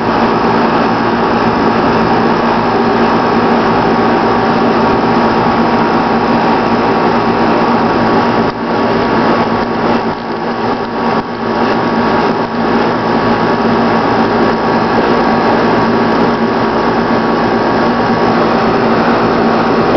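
Pole-pig high-voltage transformer powered up and feeding a TV flyback transformer, giving a loud, steady electrical buzz. The flyback is not arcing or burning; it holds up under the voltage.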